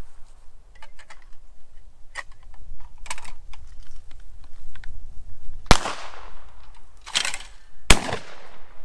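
Two loud shotgun shots about two seconds apart, the first a little past the middle and the second near the end, each with a short ringing tail. A rougher clack comes shortly before the second shot, and light clicks and knocks come in the first few seconds.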